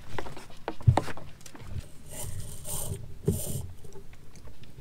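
Scattered light knocks and clicks of gear being handled on a sailboat deck, including a red plastic fuel jerry can being passed down, with a stronger knock about a second in and two short hissing rustles a little past the middle.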